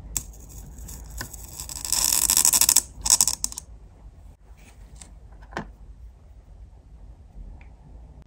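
Miniature tweezers and tiny dishes handled on a tabletop: a dry rasping scrape that swells over about three seconds and breaks off, then a second shorter rattle, followed by a few light clicks and taps.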